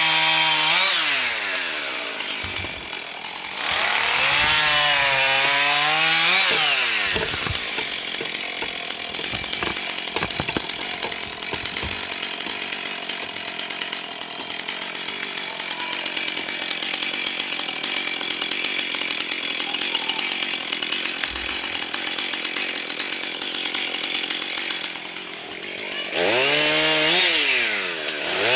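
Husqvarna chainsaw with a 16-inch bar revving up and down a couple of times. It then runs steadily under load for most of the stretch as it cuts through a branch, and revs up again near the end.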